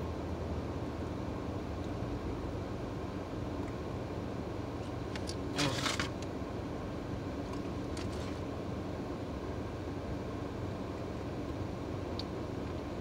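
Steady low hum of a car running, heard from inside the cabin, with a few faint mouth and chewing clicks and one brief rustle a little before six seconds in.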